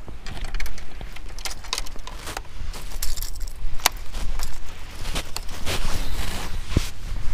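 Irregular clicks, rustles and scrapes of handling noise as a body-worn camera is bumped and rubbed by clothing and fishing gear, over a steady low rumble of wind on the microphone.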